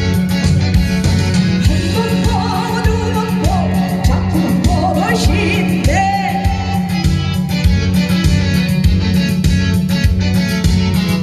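Upbeat backing track with a steady, quick beat and heavy bass, with a sliding lead melody sung over it.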